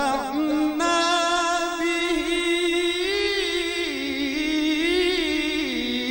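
A male Quran reciter's voice in melodic, unaccompanied recitation, heard through a microphone: one long held note that starts just after a brief break, with wavering ornaments in the middle and steps down in pitch near the end.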